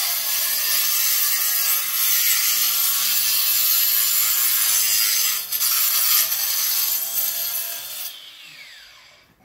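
Handheld power saw dry-cutting through a concrete block wall, a steady grinding hiss for about eight seconds. Then the saw is let off and its whine falls as the blade spins down.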